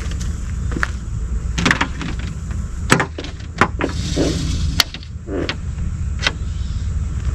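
Scattered sharp clicks and knocks, about five of them, with a couple of short scuffs, as the Starlink cable is handled at the open side door of a van, over a steady low rumble.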